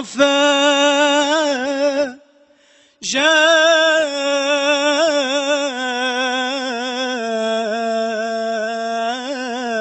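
A man singing an unaccompanied Islamic devotional chant (inshad), drawing out long ornamented notes that waver in pitch. There is a short pause for breath about two seconds in.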